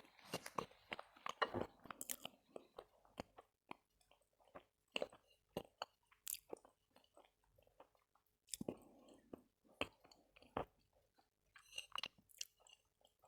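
A person biting and chewing pieces of Khrapovsky chalk: irregular crisp crunches mixed with softer chewing sounds.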